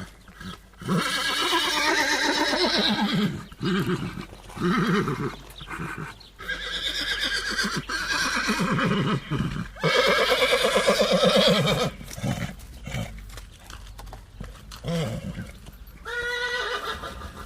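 Horse whinnying: a series of long, wavering neighs, the loudest about a second in and again about ten seconds in, with shorter calls between and a brief one near the end.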